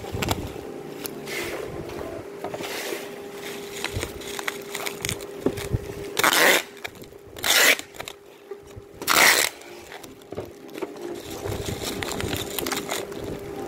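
Plastic bubble wrap crinkling and rustling as it is wrapped and pressed around an object by hand, with three short, loud rasping bursts about halfway through.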